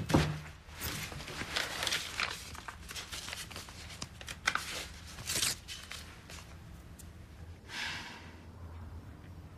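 A paper banknote being handled and folded by hand: a string of crisp crinkles, rustles and small clicks, with a short breathy hiss near the end.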